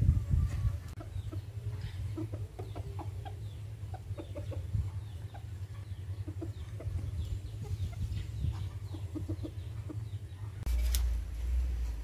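Chickens clucking: many short, soft calls in quick succession over a steady low rumble, with a sharp click near the end.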